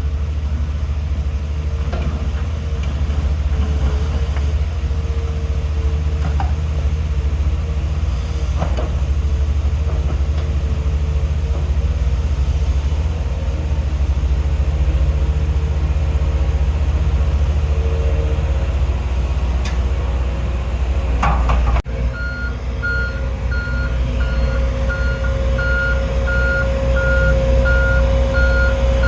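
Heavy diesel construction machinery running with a steady low rumble. After an abrupt break about two-thirds of the way through, a reversing alarm beeps regularly, about twice a second, over the engine.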